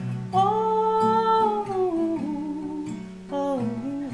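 A woman humming a wordless melody over acoustic guitar: one long held note that slides down, then a shorter falling phrase near the end.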